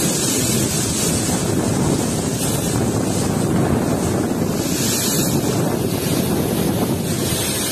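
Cyclone-force wind gusting over the microphone: a loud, steady rush of noise, with palm fronds and trees thrashing in the gale.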